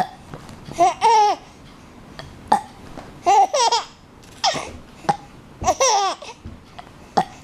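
A five-month-old baby laughing in short bursts of high-pitched, squealing laughter, about six in a row, each rising and falling in pitch.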